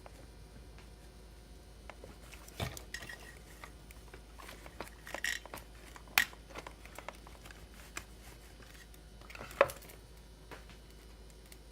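Small metal parts and hand tools clinking and knocking against a chainsaw as it is worked on by hand, in scattered sharp clicks with two louder clinks about six and nine and a half seconds in.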